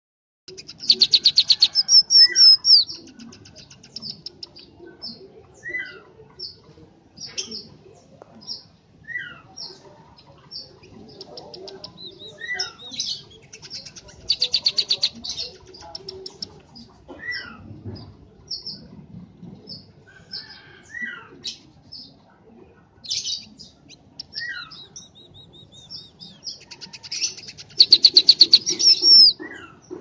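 Scaly-breasted munia (bondol peking) singing: three loud bouts of rapid, high clicking buzzes near the start, in the middle and near the end. Between them it gives short high notes and brief falling whistles.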